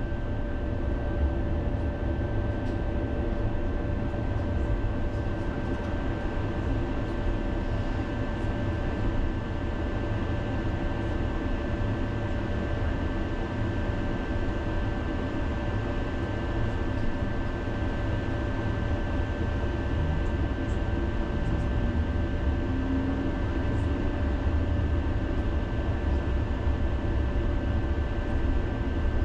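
Electric tram running on its rails, heard from inside the car: a steady low rumble with a faint constant whine and no pauses.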